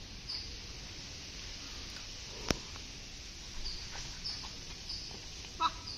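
A badminton racket hits the shuttlecock with one sharp crack about two and a half seconds in, with a few fainter hits later, over steady background hiss. Short, high bird chirps repeat throughout.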